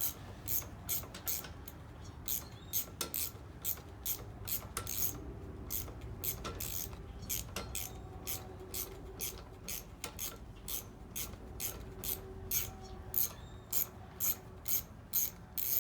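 Socket ratchet clicking as a fastener is turned out with a number 8 socket, about two to three clicks a second in a steady series of short strokes.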